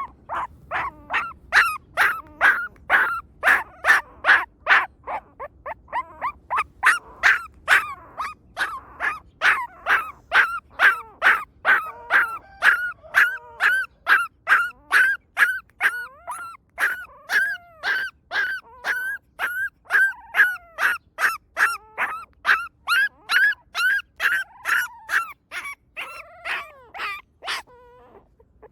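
A puppy crying: short, high-pitched squeals repeated rapidly, about two or three a second, without a break.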